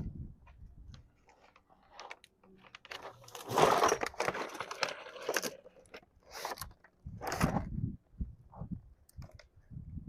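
Irregular crunching and rustling handling noises, in uneven bursts, loudest a few seconds in.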